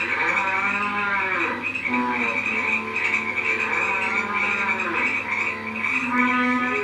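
Night chorus of frogs croaking and trilling, a dense steady pulsing chorus with repeated rising and falling calls.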